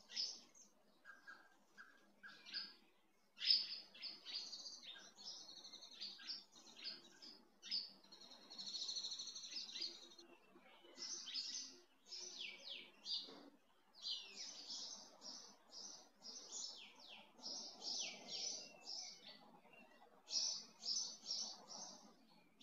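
Small birds chirping: many short, high calls in quick runs with brief pauses between them.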